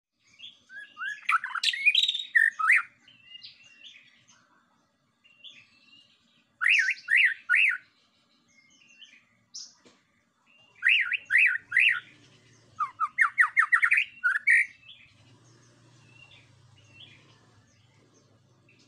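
White-rumped shama singing: bursts of clear whistled phrases with pauses between, including quick runs of upswept notes, three in a row about 7 and 11 seconds in and a faster run of about eight around 13 seconds in.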